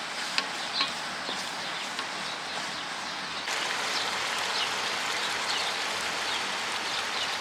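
Onion, ginger-garlic paste and green chillies frying in hot oil, a steady sizzle that grows louder about halfway through. Short high bird chirps sound over it.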